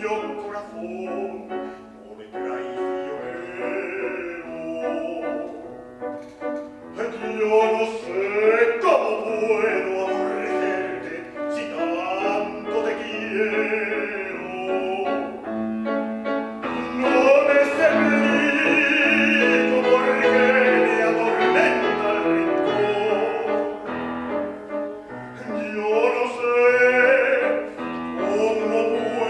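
A male classical singer singing in an operatic style with a wide vibrato, accompanied by a grand piano; the phrases break off briefly now and then.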